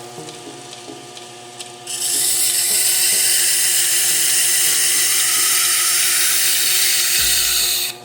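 Knife blade being sharpened on a power grinder: a loud, steady hiss of steel against the abrasive that starts suddenly about two seconds in and stops just before the end.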